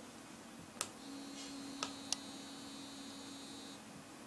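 A plastic pager button clicks, and the SINGCALL APE6900 bracelet receiver then gives a steady low buzz with a faint high whine for nearly three seconds as it receives the call. Two more ticks come during the buzz, and another button click comes at the end.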